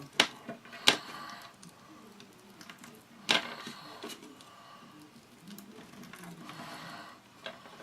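A stick crushing and mashing mistletoe berries: three sharp knocks in the first few seconds, then a softer scraping and grinding sound.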